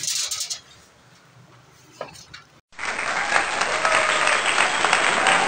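A few faint clatters, then after a brief dropout about two and a half seconds in, a crowd applause and cheering sound effect starts abruptly and keeps going.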